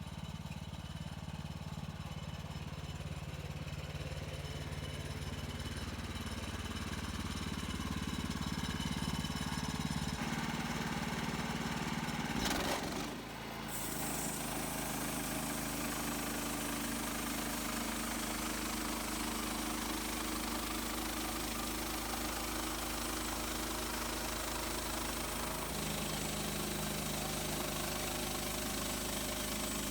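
Portable bandsaw sawmill's gasoline engine running steadily. About 13 s in there is a brief break, and after it the engine's note is different.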